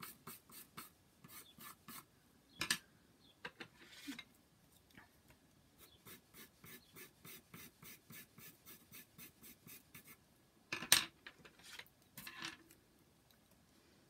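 Coloured pencil scratching on paper in quick back-and-forth shading strokes, several a second, in runs with pauses. A few louder knocks of pencils handled on the table, the loudest about eleven seconds in.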